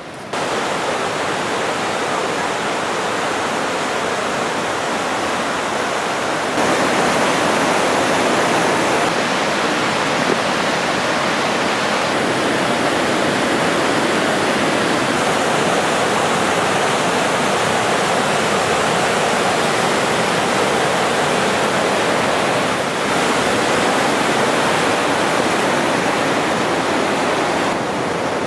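Rushing roar of the Kiutaköngäs rapids on the Oulanka River: a loud, steady whitewater rush that steps louder a few seconds in.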